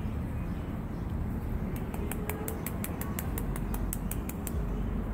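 A spice container being tapped over a pan to shake out paprika: a quick run of light ticks, about five a second, starting about a third of the way in.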